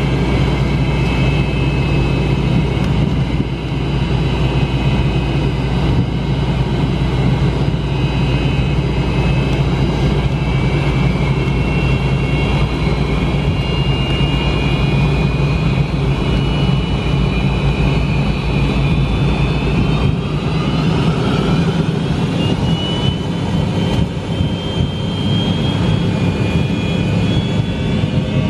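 Cabin noise of a McDonnell Douglas MD-88 taxiing, its rear-mounted Pratt & Whitney JT8D turbofans running with a steady low rumble and whine. About two-thirds of the way in, the whine starts rising in pitch as the engines begin to spool up.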